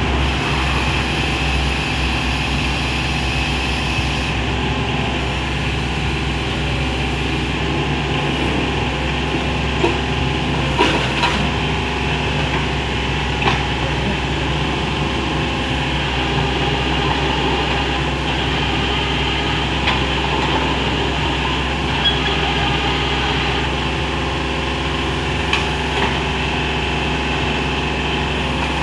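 Kubota KH60 backhoe's diesel engine running steadily, with a few short sharp knocks now and then.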